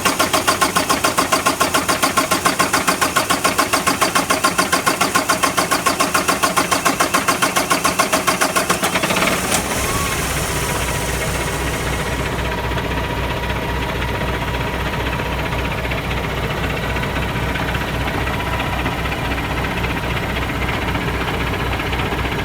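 Paccar MX inline-six diesel truck engine cranking on the starter with a fast, even chug for about nine and a half seconds, then firing and settling into a steady idle. This is a hard start after the fuel system was hand-primed.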